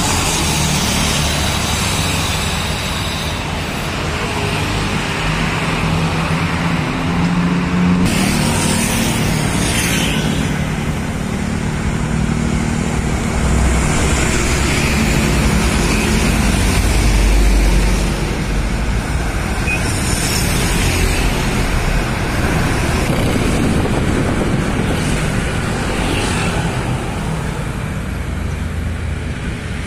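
Busy road traffic: diesel coaches and buses, cars and motorcycles passing close by, with a continuous rumble of engines and tyres. The low engine rumble swells loudest a little past the middle as a large bus goes by.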